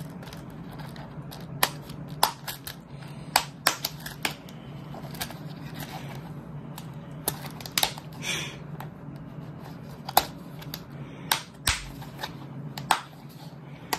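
Metal snap buttons on a stiff plastic Elizabethan collar clicking as the collar is fastened around a kitten's neck: a dozen or so sharp, irregular clicks with some plastic rustling, over a steady low hum.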